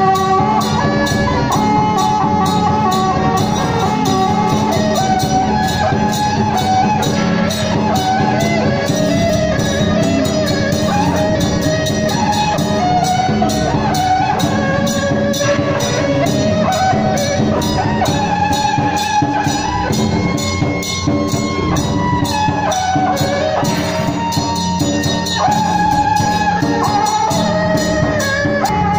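Traditional Taiwanese temple-procession music: a melody that wanders up and down over fast, unbroken drum and cymbal beats.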